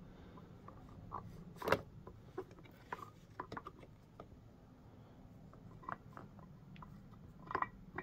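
Scattered light taps, clicks and crunches of small rocks and grit on a miniature RC crawler course, with the sharpest crunch about two seconds in and a few more near the end.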